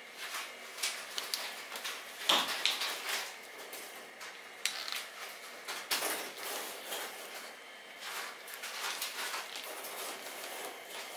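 Hot sugar candy being pulled and folded over a hook with a wooden stick: irregular sticky smacks and clicks, the loudest about two seconds in.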